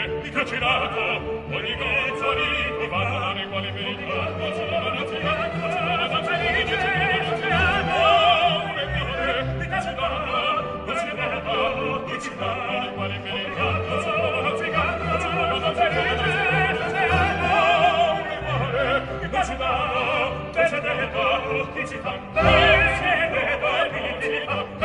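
Opera: a male voice singing with vibrato over an orchestra.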